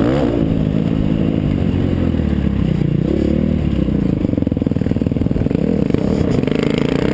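Motocross dirt bike engine heard close from the rider's helmet, revving up and down with the throttle over a rough dirt track. Its pitch falls to a lower, pulsing note through a corner about four seconds in, then climbs again near the end.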